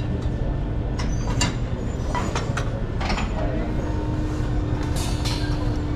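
Shopping cart being pushed across a store floor: a steady rolling rumble from its wheels, with scattered clicks and rattles. A steady low hum joins about halfway through.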